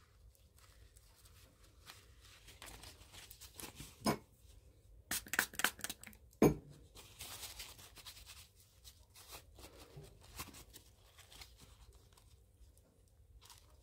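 Paper tissues being torn and handled: soft rustling with a few sharper rips between about four and six and a half seconds in.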